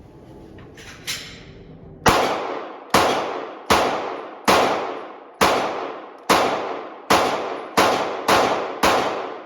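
Glock 43X 9mm pistol fired ten times in steady slow succession, a bit under a second between shots, each shot echoing and dying away; a small click comes about a second in, before the first shot.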